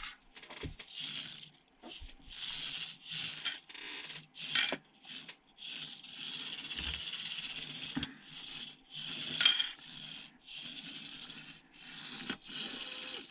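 Turbo Racing 1/76 Mini RC car driving in stop-start throttle bursts, its tiny electric motor and gears whirring. The stretches last from under a second to about two seconds, with short pauses between.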